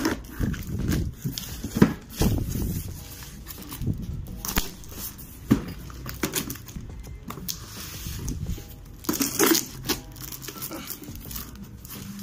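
Packing tape being pulled and cut off a cardboard box, with the cardboard crinkling, scraping and tearing in irregular sudden bursts, and one sharper knock about two seconds in.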